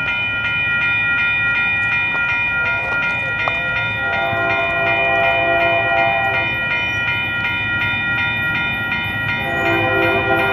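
Railroad grade-crossing bell ringing in quick, even strikes, while an approaching Union Pacific freight locomotive's air horn sounds a chord of several notes about four seconds in for a couple of seconds, then again near the end.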